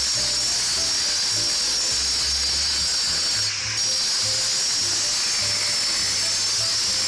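Handheld power cutter with a thin cutting wheel grinding through a concrete deck, a steady high whine that breaks off briefly about three and a half seconds in. Background music plays along with it.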